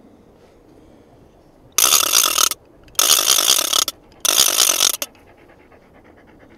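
A wooden hand-held game call being worked, giving three harsh rasping calls of under a second each, with a fourth starting at the very end.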